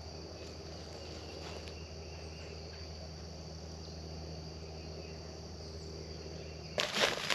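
Steady, even high drone of an insect chorus in the woods. Near the end it gives way abruptly to louder, irregular crackling of footsteps in dry leaf litter.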